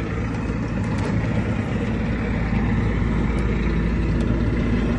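Steady low hum of an idling vehicle engine, with a few faint light clicks over it.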